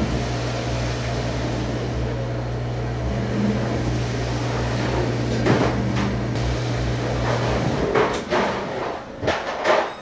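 A steady machine hum that stops about eight seconds in, with ceramic dishes and bowls clattering as they are stacked, once midway and several times near the end.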